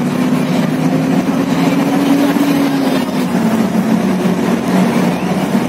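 Motor vehicle's engine running steadily under a wash of tyre and road noise, heard from inside the vehicle at highway speed; the engine pitch rises a little about two seconds in, drops back a second later, and steps up again near the end.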